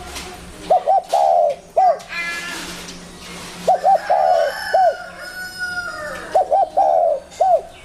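Spotted dove cooing, its phrase repeated three times, each a quick double coo, a longer rolling coo and a final single coo. Fainter chirps from other birds come in between the phrases.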